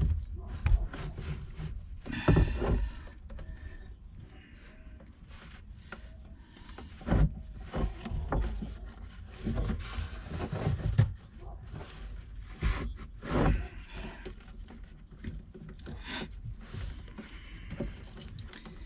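Irregular knocks, scrapes and rustles of hands working a battery tie-down strap and its buckle, fastening a boat's oil tank in place.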